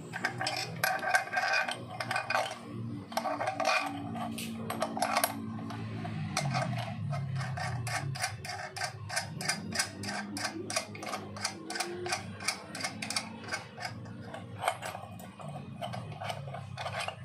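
Light metal clicking as a nut is spun by hand along the threaded shaft of a bearing puller, a quick run of clicks at about four a second.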